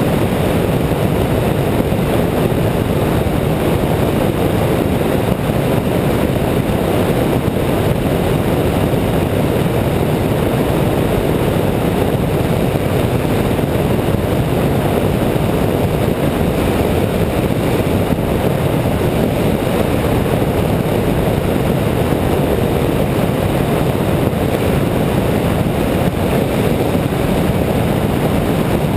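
Steady rush of wind and road noise on a camera mounted on the hood of a moving car, holding level throughout.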